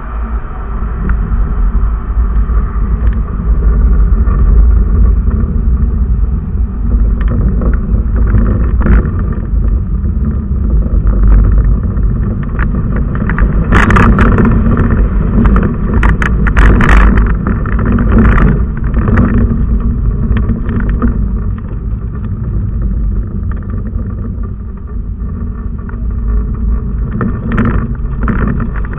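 Steady low rumble of a vehicle on the move: road and wind noise on the mounted camera's microphone, with a cluster of sharp crackles about halfway through.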